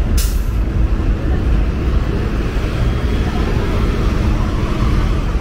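Steady city street traffic noise with a heavy low rumble, and a brief sharp hiss just after the start.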